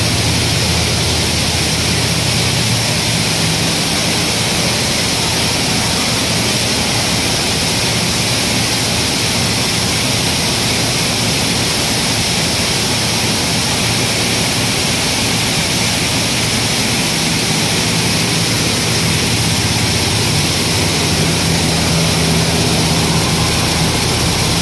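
Grain cleaning plant running: a vibrating sieve grader with its elevators makes a steady, loud machine noise like rushing air, with a low hum that swells twice.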